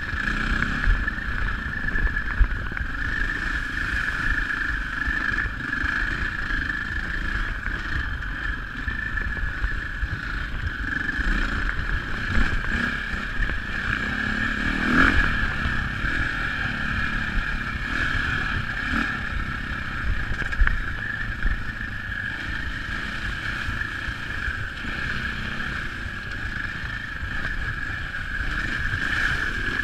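KTM dirt bike engine running steadily under way over a rough dirt track, with a constant high drone. Wind buffets the microphone, and bumps from the track come through as irregular knocks.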